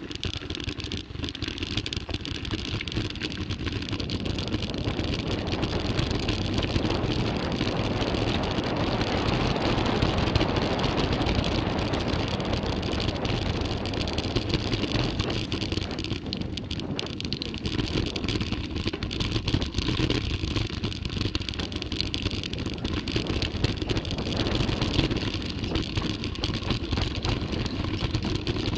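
Mountain bike riding down a rough trail, heard from a bike- or body-mounted camera: a steady rush of wind on the microphone with tyre roll and frequent small rattles and knocks. The noise builds over the first few seconds as speed picks up, then stays loud and uneven.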